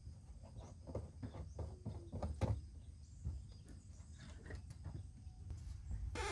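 Scattered small knocks, clicks and creaks from hands working inside the plastic cockpit of a whitewater kayak, pulling at its foam outfitting, over a low rumble of wind on the microphone. A louder scrape begins right at the end.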